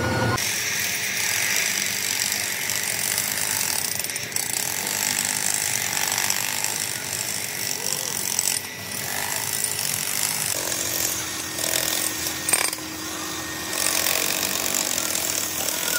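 Metalworking machinery running in a workshop: a steady, harsh rasping noise with a few sharp knocks, and a low hum coming in partway through.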